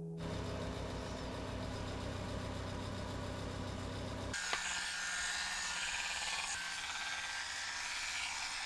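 A low, steady hum for about the first half, then an electric shaver buzzing from about halfway through as it is run over the neck and jaw.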